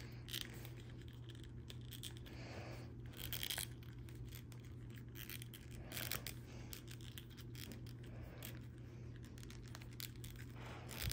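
Faint scattered clicks and scrapes of a plastic McFarlane action figure being handled as its face mask is pushed up and tucked under the neck. A steady low hum runs underneath.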